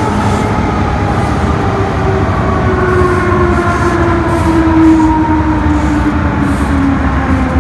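MTR M-Train electric multiple unit's traction motors whining under steady wheel-and-track rumble. The whine falls steadily in pitch as the train slows into a station platform.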